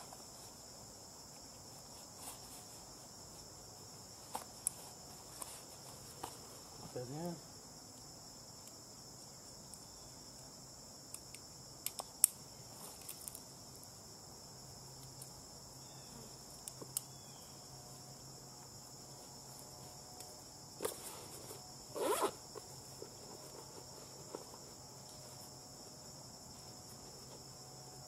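A steady high chorus of insects runs throughout. Over it are scattered clicks, rustles and short rasps as climbing gear and a saddle are unclipped and handled. The loudest is one sharp click about 12 seconds in, and a short zipper-like rasp comes about 22 seconds in.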